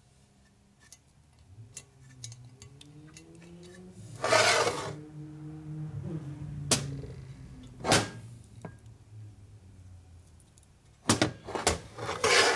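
Aluminium engine crankcase half and tools being handled on a steel workbench: a short, loud rush of noise about four seconds in, two sharp metal knocks a little later, and a quick cluster of clattering knocks near the end, over a low, wavering hum.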